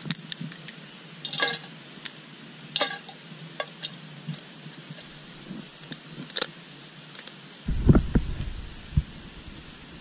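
Light clicks and rustles of a small metal can stove being handled and set up in grass, over a steady background hiss. Low heavy thuds come about eight seconds in and again just before the end.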